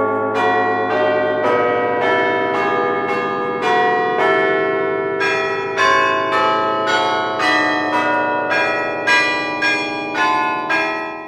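Church bells pealing: several bells of different pitch struck one after another, about two strokes a second, their ringing overlapping. The peal fades out at the very end.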